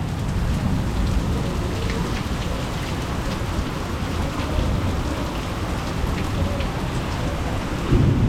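Heavy rain falling steadily, with scattered drops ticking; a low rumble of thunder begins near the end.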